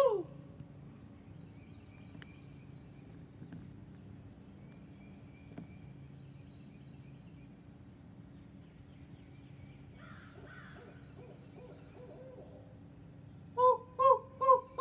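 Owl hooting close by: after a long quiet stretch with faint distant bird calls, a series of about four evenly spaced hoots comes near the end.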